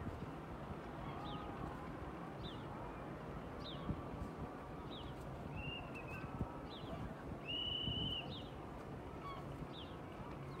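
A bird calling over and over in short, high, falling notes, roughly once a second. It gives two longer held notes past the middle, the second of them the loudest sound here. A steady outdoor background noise runs underneath.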